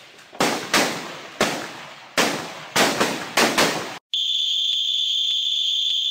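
A rapid string of rifle shots, about seven in four seconds, from a recording of a real 300 m rifle competition played as background distraction. About four seconds in, a steady high range whistle starts and holds: the signal ending the series.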